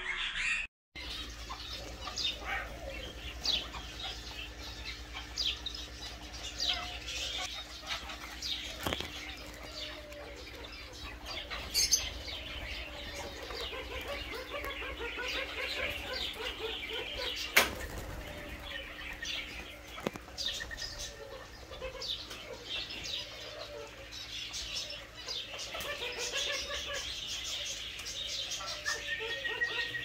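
Mixed aviary birds calling: many short high chirps and twitters, joined through the second half by a low call repeated about once a second, over a steady low hum. Two sharp clicks stand out about twelve and seventeen seconds in, the second being the loudest sound.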